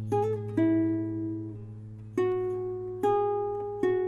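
Background music: a plucked acoustic guitar picking notes that ring and fade, over a steady low note.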